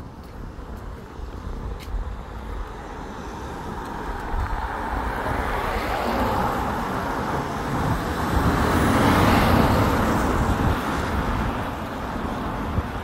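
A car passing close by on a wet road: the hiss of tyres on wet tarmac builds, peaks about nine seconds in, then fades, over a steady low rumble.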